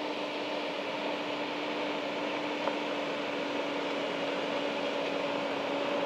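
Volvo FH16 700 road train's 16-litre straight-six diesel running steadily as it rolls slowly forward on dirt, a steady hum over a broad hiss that grows a little louder near the end.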